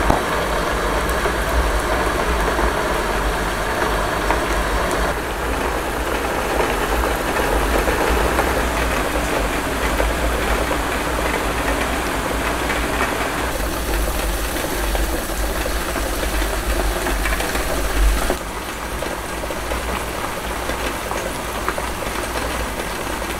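Aluminium mess tins cooking over burning solid-fuel tablets: a steady boiling and simmering noise with a deep rumble. It shifts abruptly about five, thirteen and eighteen seconds in.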